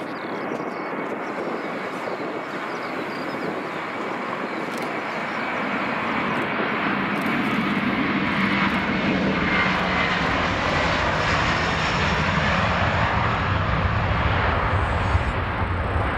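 Airbus A330-300's twin Pratt & Whitney turbofan engines running at high thrust on the takeoff roll, a steady jet noise that grows louder about halfway through, with a deep rumble building underneath.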